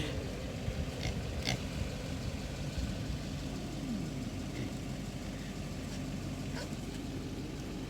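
Low steady hum of an idling vehicle engine, with a few faint clicks and one short, low falling grunt from an animal about three seconds in.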